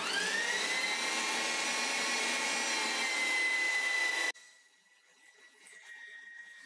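Electric meat grinder switching on and running, its motor whine rising in pitch over the first second and then holding steady while onion and meat are pushed through the mincing plate. About four seconds in the sound drops suddenly to a much fainter steady hum.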